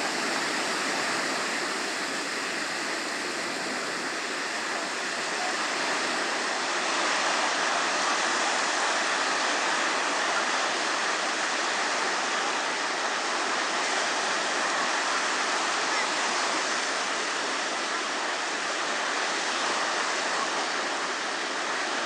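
Small waves breaking and washing up a beach of the Mediterranean Sea: a steady hiss of surf.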